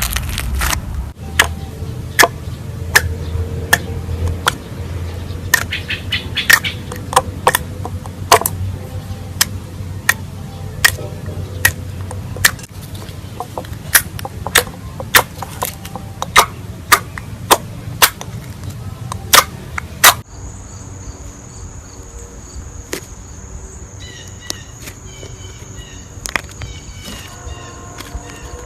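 Slime being squeezed and worked by hand, with sharp pops and clicks from trapped air about once or twice a second over a low rumble. About 20 seconds in this gives way to a quieter, steady high tone with faint chirping.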